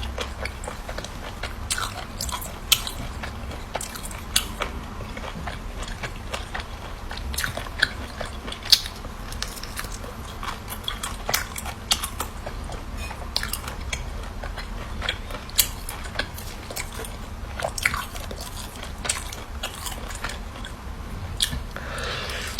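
Close-miked eating: a person biting and chewing crunchy food, with sharp, irregular crunches and crackles as they chew.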